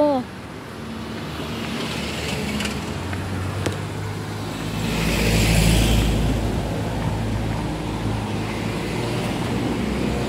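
Road traffic: car engines running on the road alongside, with one vehicle passing close and swelling to its loudest about five to six seconds in.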